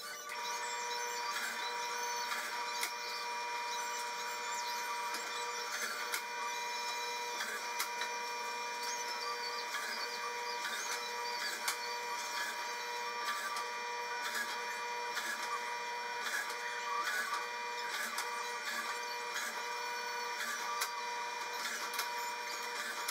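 Benchtop drill press running steadily with a whine, boring holes in a wooden shelf, with scattered light clicks and knocks as the board is moved and drilled.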